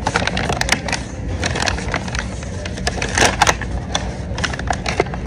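Brown paper bag crinkling and rustling as it is handled and opened: irregular crackles, with a denser burst about three seconds in, over a steady low background rumble.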